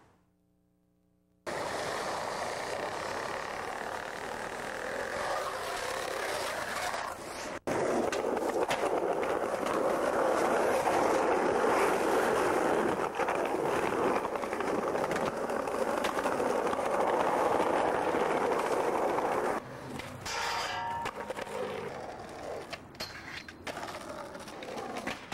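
Skateboard wheels rolling over rough pavement, a loud steady rumble that drops out for a moment about seven and a half seconds in. Near the end it turns patchy, with clacks and scrapes of the board.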